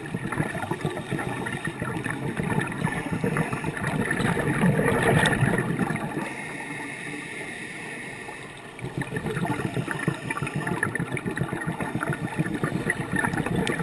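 Scuba diver's exhaled bubbles from a regulator, heard through a GoPro's underwater housing: a crackling, gurgling rush of bubbles for about six seconds, a quieter lull of two or three seconds, then bubbling again.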